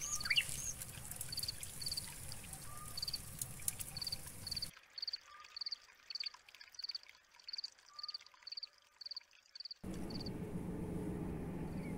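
Steady chirping of a cricket at night: short high chirps repeating about twice a second. A low rushing background drops away for about five seconds in the middle and comes back louder near the end.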